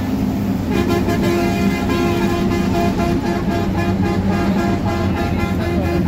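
Inside a moving bus: the engine runs with a steady pitched drone over a constant low road rumble. The drone drops out briefly and comes back under a second in.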